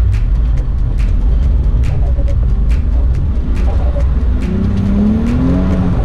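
Toyota Chaser JZX100's turbocharged 1JZ-GTE VVT-i straight-six heard from inside the cabin, pulling under load over heavy low road rumble. The revs climb about four and a half seconds in.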